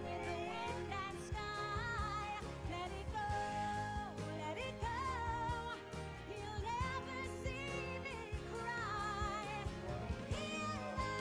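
Background pop song with a female singing voice over instruments and a steady beat.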